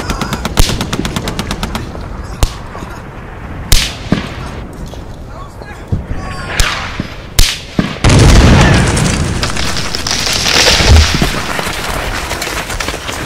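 Battle gunfire: a rapid machine-gun burst at the start, then scattered single shots. About eight seconds in comes a loud blast, followed by a few seconds of continuing noise.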